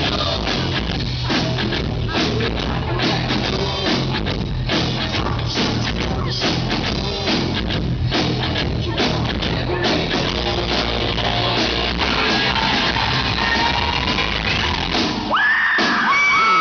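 Rock band playing live and loud, with drums beating steadily under the band. A high, held vocal line comes in near the end.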